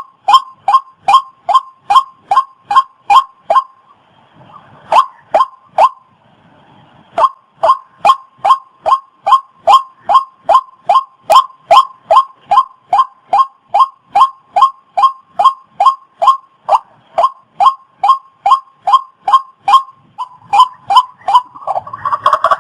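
Waterhen calling: a steady string of short, identical notes, about three a second, with a pause of a few seconds early on. Near the end a rougher, noisier burst of sound starts over the calls.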